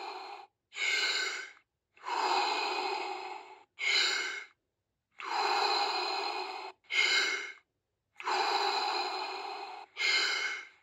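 A woman doing deep, rhythmic Wim Hof power breathing, one breath cycle about every three seconds: a longer breath of about a second and a half, then a shorter one, near the end of a round of about 30 breaths.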